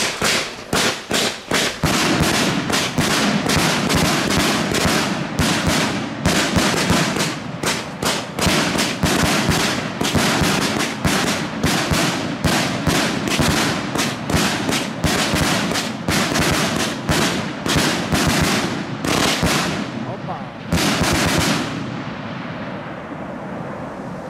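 Fireworks cake with salute (report) shots firing: a long rapid series of very loud bangs, several a second, that stops about 21 seconds in, leaving a fading hiss.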